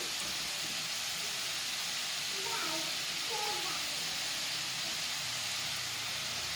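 Flour-coated instant noodles deep-frying in hot oil: a steady sizzling hiss.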